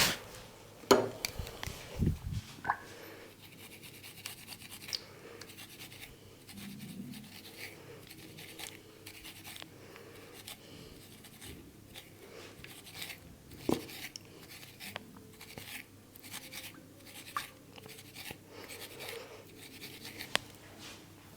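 Hands rubbing and scratching through hair and over the scalp in a head massage, making soft, irregular scratchy rustles. A few sharper knocks stand out, about a second in, at two seconds, and near the middle and end.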